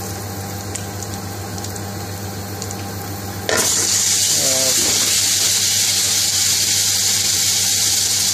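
Vegetable oil and curry powder sizzling in a hot pan, a steady hiss that suddenly gets much louder and brighter about three and a half seconds in.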